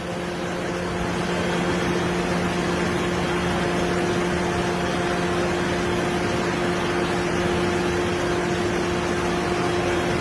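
Steady mechanical hum: a constant low drone with even noise over it, getting a little louder over the first two seconds and then holding level.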